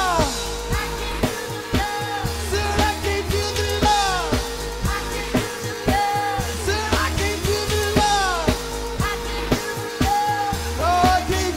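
A woman singing long notes that often slide down in pitch, over a live band playing a steady drum beat and a deep bass line.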